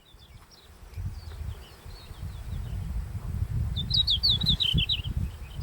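Red-flanked bluetail singing: faint high notes in the first two seconds, then one clear phrase of quick descending notes about four seconds in. A steady low rumble runs underneath.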